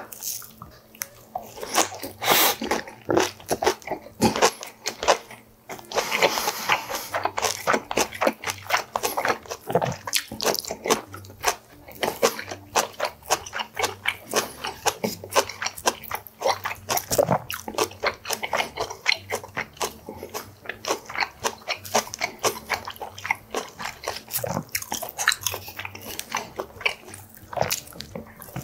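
Close-miked chewing of fresh napa cabbage kimchi wrapped around boiled pork belly (bossam): a dense, irregular run of crisp crunches as the raw cabbage leaves are bitten and chewed.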